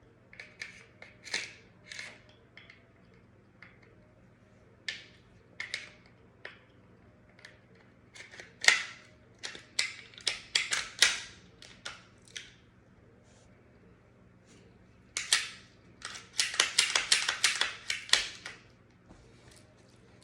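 Metal-and-polymer clicks, taps and scrapes of a Smith & Wesson M&P 9mm pistol's parts being handled during cleaning, in irregular single strokes, with a quick run of rapid scraping strokes about three-quarters of the way through.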